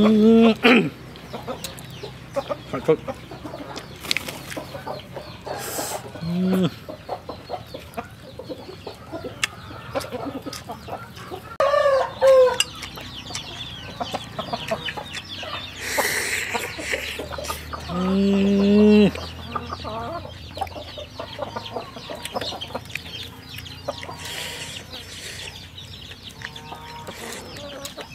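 Domestic hens clucking in short calls now and then over close eating sounds: chewing, and grilled crocodile meat being torn apart by hand with soft clicks and crackles.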